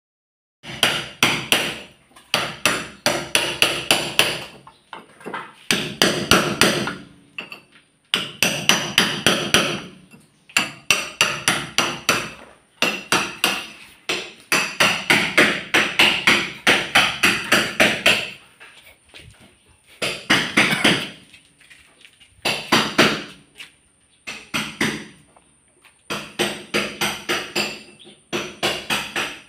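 Hammer striking repeatedly: fast runs of blows lasting one to three seconds, separated by short pauses.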